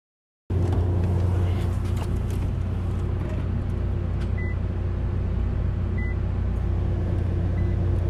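Steady low hum from a Nissan GT-R during an attempt to start it, with a few clicks in the first two seconds and two short electronic beeps from the car about halfway through, a fainter third near the end.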